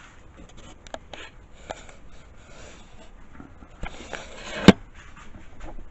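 Camera being picked up and moved by hand: small clicks and rubbing, a rising rustle, then one sharp knock about three-quarters of the way through.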